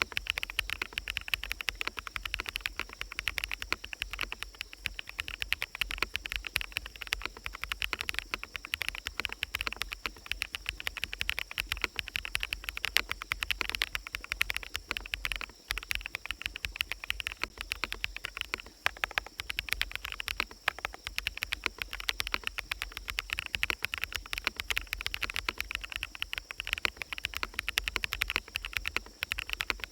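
Continuous fast typing on a mechanical keyboard with fully lubricated BSUN Sunset Yellow switches, a dense unbroken stream of keystroke clacks, over a steady high hiss of forest ambience.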